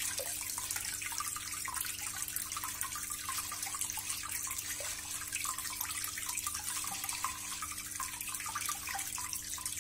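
Water from a turtle tank's filter return outlet pouring in a stream onto the tank's water surface, a continuous splashing. A faint steady low hum runs underneath.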